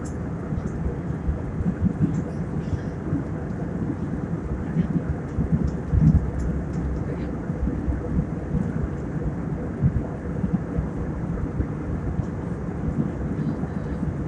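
Airliner cabin noise in flight: a steady low rumble with uneven surges.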